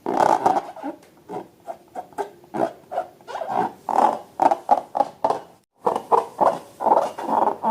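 Slime being worked by hand, a run of short squishing, squelching sounds about two a second, cut off briefly by a moment of silence a little before the end.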